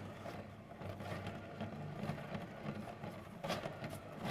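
Plastic Lazy Susan turntable spun by hand, a steady low rumble from its turning, with a few light rubs or knocks.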